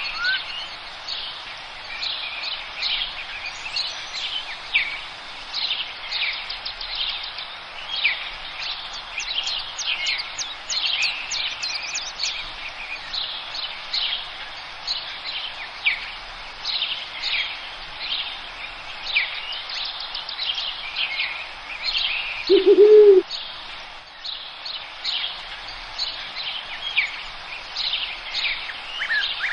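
Forest songbirds chirping and trilling in a busy chorus of quick, high notes. About three quarters of the way through there is one short, low call, louder than the rest.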